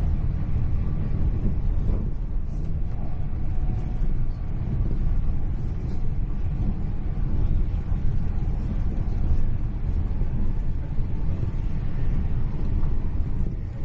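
Steady low rumble of a Hitachi Class 800 Intercity Express Train running at speed, heard from inside the passenger coach.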